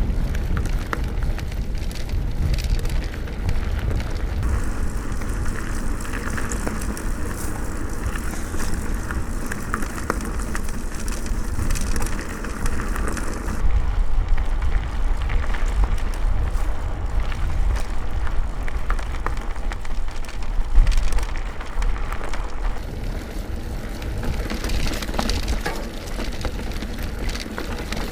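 Mountain bike ride heard through camera and recorder microphones: wind rumble on the mic, with tyre and trail noise and bike rattle. The sound's character switches abruptly about every nine seconds as one recording cuts to the next.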